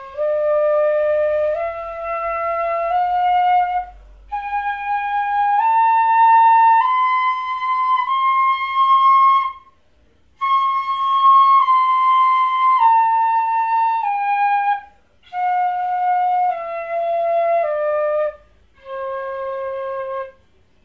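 Pífano in C, a Brazilian transverse fife, playing a slow C major scale: long held notes stepping up an octave from low C to high C and back down, with short breaks for breath between groups of notes.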